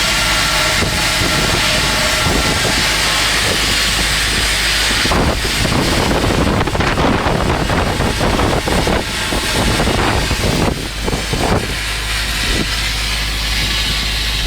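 Stick-welding arc burning a 6010 cellulose electrode on steel pipe: a steady, dense crackling hiss that turns rougher and more broken about five seconds in, over a steady low hum.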